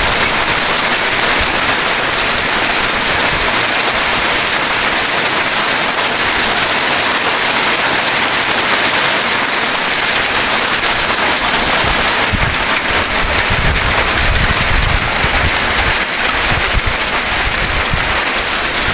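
Steady rain falling on fields and vegetation, a dense even hiss, with some low rumbling mixed in during the second half.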